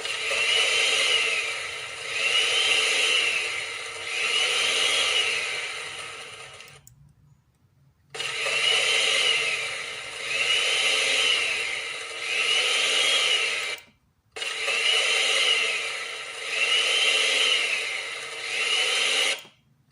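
Repeated rasping strokes, each swelling and fading over about two seconds, in three runs of three strokes broken by brief silences.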